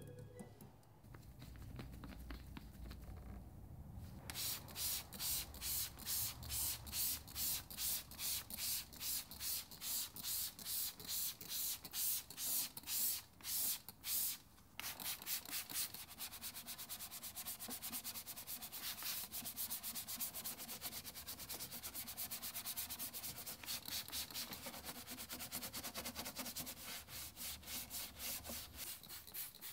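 Hand trigger sprayer misting all-purpose cleaner onto a plastic engine cover, a quick spray about twice a second starting a few seconds in. About halfway through, a detailing brush starts scrubbing the wet cover in fast, even strokes.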